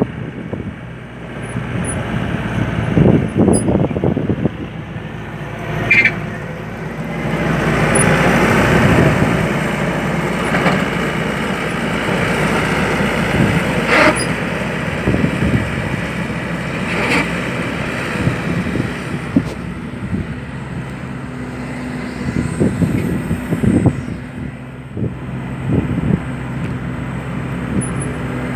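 Tracked skid steer loader's engine running steadily, getting louder under load for a couple of seconds around eight seconds in, with a few sharp clanks now and then.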